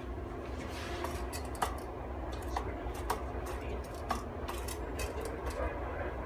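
Scattered light clicks and ticks from handling a vintage cord-reel light's metal housing and parts, over a low steady hum.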